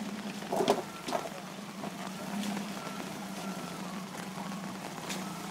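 Jeep Wrangler engine running steadily at low revs while it crawls up out of a rocky riverbed. A couple of sharp knocks come about half a second to a second in.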